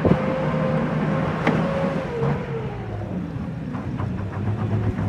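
Four-wheel-drive engine revving hard and holding high revs under load during a tow recovery of a pickup stuck in floodwater, easing off a little about two seconds in.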